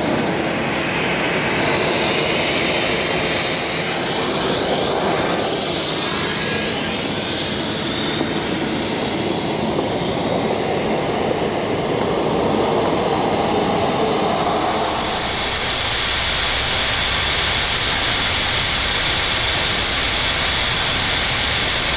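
Steady jet engine roar. About three-quarters of the way through, the sound changes to the Boeing 747-8 freighter's engines at takeoff thrust, heard inside the cockpit during the takeoff roll.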